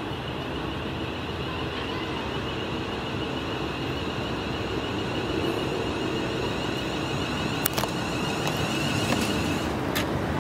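Class 350 Desiro electric multiple unit pulling into a platform and slowing to a stop, its running noise growing slowly louder. A high steady whine cuts off about a second before the end, and there are a few sharp clicks in the last few seconds.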